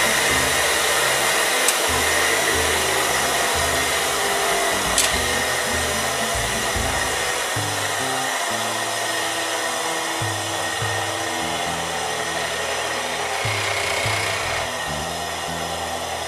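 Bench grinder running with no load, a steady motor whine and wheel hiss that slowly sink in pitch and level. The freshly dressed wheel is running smoothly enough that it may not need balancing.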